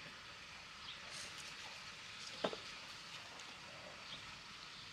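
Faint, quiet outdoor background hiss with one short click about two and a half seconds in.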